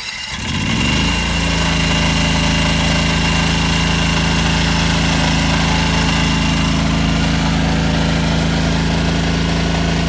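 Engine of a portable irrigation water pump, just started, speeding up over about the first second and then running steadily at a constant speed.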